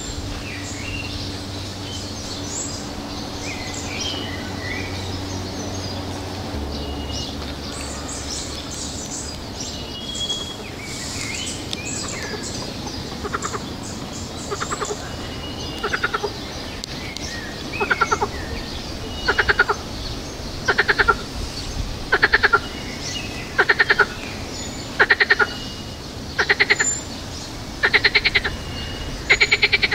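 Frogs croaking: a regular series of fast, rattling croaks about half a second long, one every second and a half or so, starting about halfway through and growing louder. Birds chirp in the first half.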